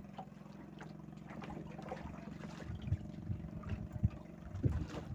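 Small fishing boat's engine running steadily at idle, with water splashing against the hull and a few sharp knocks, the loudest about four seconds in.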